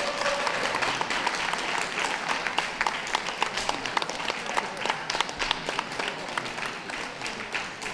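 Audience applauding, a dense patter of many hands clapping that eases off toward the end.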